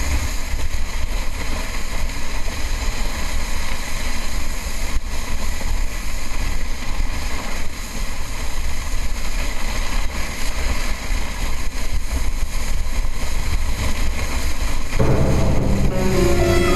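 Plastic sled sliding fast down packed snow: a steady rumbling scrape and hiss of the hull on the snow, mixed with wind buffeting the body-mounted camera's microphone. Music comes in near the end.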